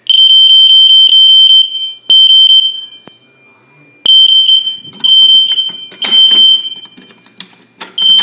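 Fire alarm horns set to a 3,000 Hz tone, sounding loudly in a test alarm. The tone comes in repeated blasts of about a second with short gaps, and sharp clicks are scattered among them.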